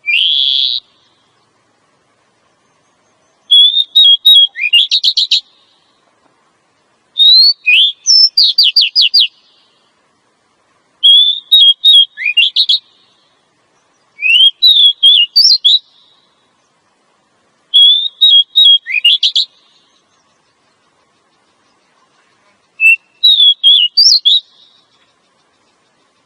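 Female Oriental magpie-robin (kacer) calling: a short note, then six loud phrases of quick whistled chirps and sweeping notes, each about a second and a half long and coming every three to four seconds with silence between. It is the female call that keepers play to bring a male kacer into song.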